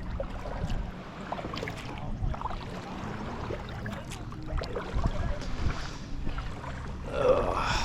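Kayak paddling: the paddle dipping and splashing in the water, with small knocks against the plastic hull and a low rumble of water and wind on the hull-mounted camera. There is a louder, brief sound near the end.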